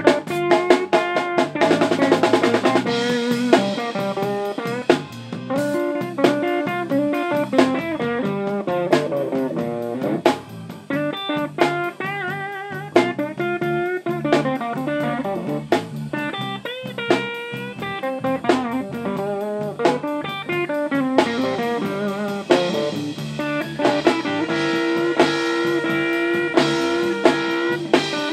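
Live blues band playing instrumentally: an electric guitar lead with bent, wavering notes over bass guitar and a drum kit keeping a steady beat.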